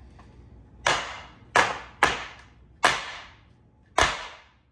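A baking tray of freshly piped macaron batter banged down on the counter five times, each a sharp knock with a short ringing tail; the knocks are meant to drive trapped air bubbles out of the batter.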